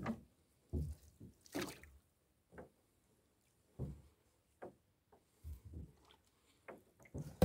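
Wet gill net hauled hand over hand into a boat: water dripping and splashing off the mesh, with irregular low knocks against the hull.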